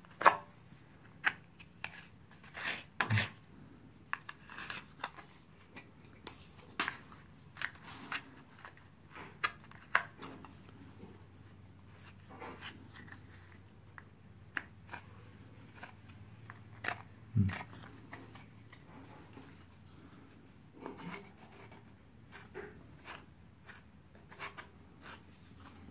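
Metal putty knife scraping and tapping on a gypsum cornice as joint compound is spread and smoothed into the corner joint: irregular short scrapes and clicks.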